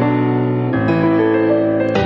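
Background music of sustained piano chords, moving to a new chord just under a second in. A short click sounds near the end.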